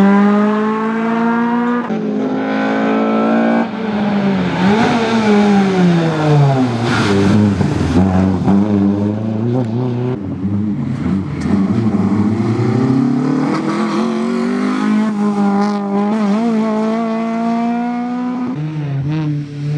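Rally hatchback's engine revving hard as it accelerates through the gears, its pitch dropping at each upshift about two and four seconds in. It then falls away as the car slows, climbs again and holds high, with another upshift near the end.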